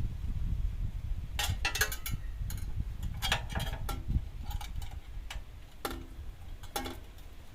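Irregular metallic clicks and light knocks of hand tools and exhaust heat-shield fittings being handled, a few of them ringing briefly.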